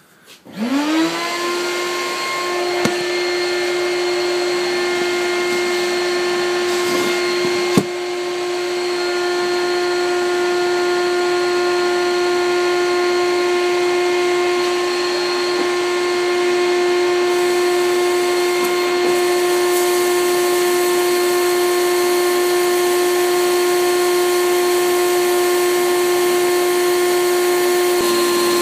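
A benchtop sandblasting cabinet starts up about half a second in, its motor humming up to speed. It then runs steadily with a hiss of air and abrasive as a freshly cast silver ring is blasted clean of its plaster investment. A single knock comes about eight seconds in.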